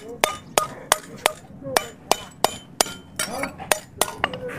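Repeated hammer blows, about three a second, each with a short metallic ring, as a hammer head is driven down onto its handle that is not yet seating easily.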